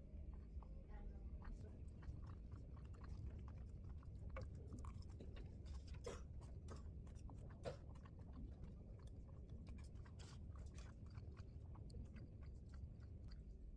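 Faint, irregular small clicks and crackles over a steady low hum.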